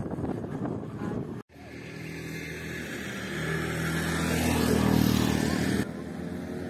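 A road vehicle's engine running, with wind noise on the microphone. The sound cuts off abruptly about a second and a half in. It resumes as a steady engine hum that grows louder, then drops sharply near the end.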